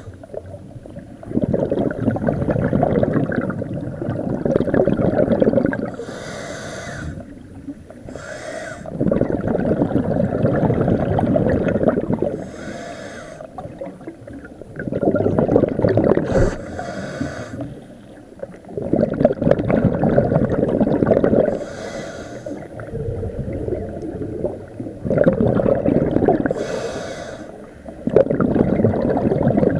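Scuba diver breathing through a regulator, heard underwater: a short hiss on each inhale, then a few seconds of bubbling from the exhaled air, repeating about every five seconds.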